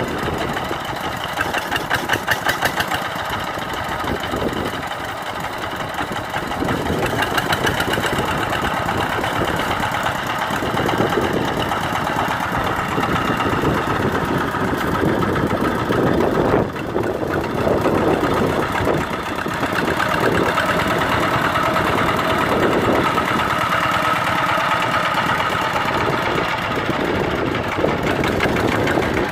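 Single-cylinder diesel engine of a two-wheel walking tractor running steadily with a fast, even chugging, under load as it drives a rotary tiller through wet paddy mud.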